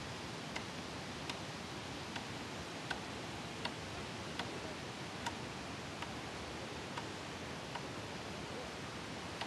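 Steady rushing of a swollen, muddy floodwater river. Light, regular ticks sound over it, a little more than one a second.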